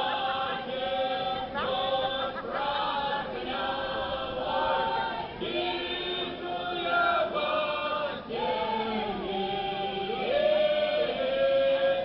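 Semeiskie folk choir singing a cappella, several voices holding long notes in drawn-out polyphonic song.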